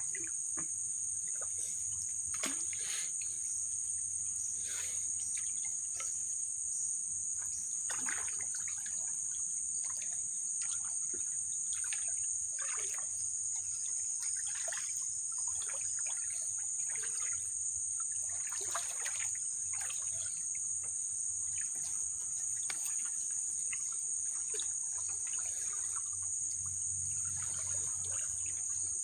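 Steady, high-pitched drone of insects, crickets or cicadas in chorus, with soft splashes and drips at irregular intervals as a wooden canoe paddle dips into the water.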